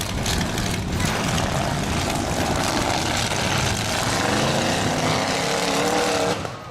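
Demolition derby trucks' engines running hard at high revs, a loud, rough mechanical racket. About two-thirds of the way in, one engine revs higher in a rising whine, then the noise cuts off abruptly near the end.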